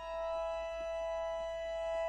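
Bayan (Russian chromatic button accordion) holding a high sustained chord, swelling in loudness in the first half second and then held steady.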